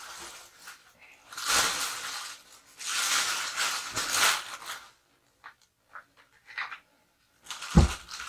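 Clear plastic bag crinkling and rustling in two spells as a small tabletop reflector telescope is pulled out of it, then a few light clicks and a single solid thump near the end as the telescope's base is set down on the table.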